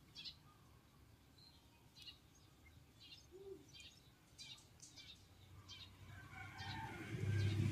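Small birds chirping in short, high calls scattered through, over faint outdoor background noise, with a louder low sound swelling near the end.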